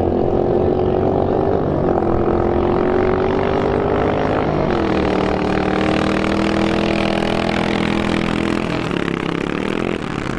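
Two pre-war motorcycles accelerating hard in a beach drag race, engines at full throttle, the pitch climbing and dropping twice at gear changes before the bikes pass the finish.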